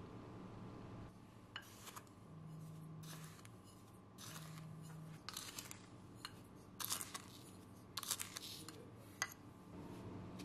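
Powdered sweetener being tipped from a small glass bowl into a mixing bowl of dry ingredients: a string of short scrapes and clicks, roughly one a second, loudest in the second half.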